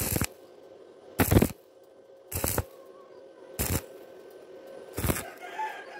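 Stick-welding arc crackling on thin galvanized steel tubing in short bursts, five in all, each about a third of a second, roughly every 1.2 s. The electrode is struck and broken off again and again to stitch the bead in pulses on the thin metal.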